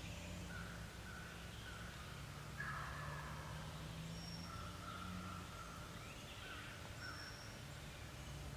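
Wild birds calling, several short notes and a few longer ones, with a louder harsh call like a crow's caw about two and a half seconds in, over a steady low hum.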